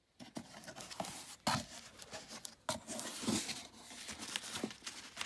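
Hands handling a cardboard shipping box and the white packing paper inside it: irregular rustling and crinkling with sharp knocks and scrapes, the loudest knock about a second and a half in.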